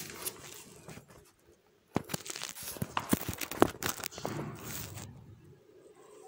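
Close handling noise as a hand touches and rubs at the floor-level camera: rustling with a quick run of sharp taps and knocks from about two seconds in, dying away near the end.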